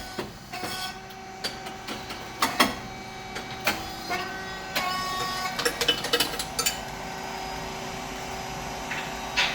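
SYP35140 rice cake machine running: a steady hum from its hydraulic pump motor and fan, with scattered clicks and metallic knocks from the moulds and valves, more frequent midway.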